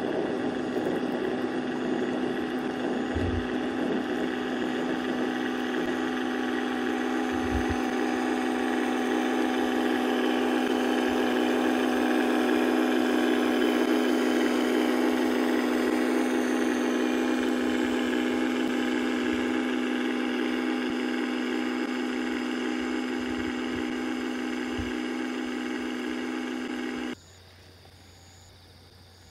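Radio-controlled model gravel carrier under way, giving a steady engine-like hum at one fixed pitch. The hum grows a little louder as the boat passes close by around the middle, then cuts off abruptly about two seconds before the end, leaving only a faint low hum.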